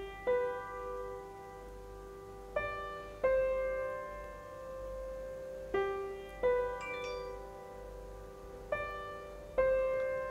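Background music: slow, gentle solo piano, with notes struck in pairs about every three seconds and each left to ring out.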